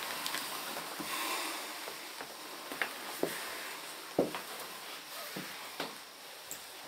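Faint room hiss with a handful of light knocks and rustles, about five short clicks spread over a few seconds, from a handheld camera being moved among hanging clothes and set down.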